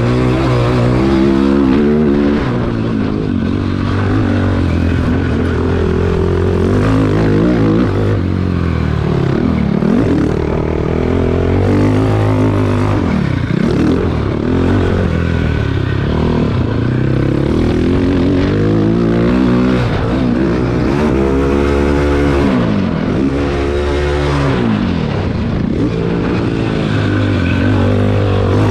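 Cannondale quad's single-cylinder four-stroke engine being ridden hard on a dirt track, its revs climbing and dropping again and again as the throttle opens and closes.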